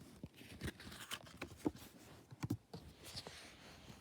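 A picture book being handled: faint scattered clicks and light paper rustling.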